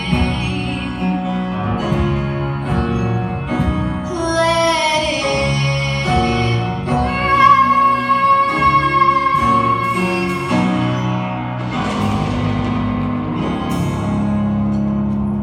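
A female solo voice singing a slow ballad over instrumental accompaniment, holding one long high note in the middle.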